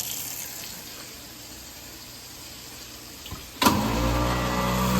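Running tap water fades out. About three and a half seconds in, a switch clicks and a garbage disposal motor starts up, then runs with a steady hum and is working.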